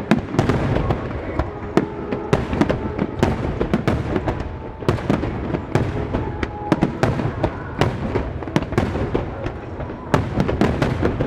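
Starmine fireworks: aerial shells fired in rapid succession, bursting in a continuous volley of sharp bangs and crackles, several a second.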